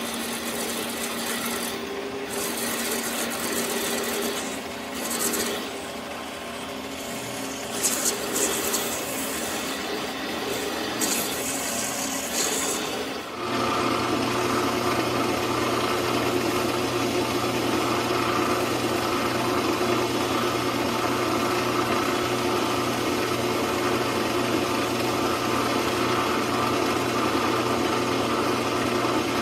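Metal lathe turning a 12L14 steel pin, the tool cutting steadily with a scratchy scraping of chips over the running motor and spindle. About 13 seconds in the sound changes abruptly to a steadier, louder run with a low hum and a whine.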